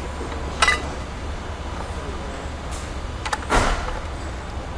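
Steady low rumble of a garbage truck engine, with two short clanks: one about half a second in, and a louder rattling one about three and a half seconds in.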